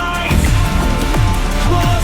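Background music: electronic track with pounding, falling bass hits several times a second under a melody line.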